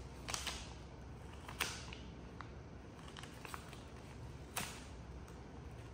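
A medicated plaster's wrapper crinkling and crackling as a young macaque handles it and picks at it, in scattered sharp crackles, the loudest about a second and a half in and again about four and a half seconds in.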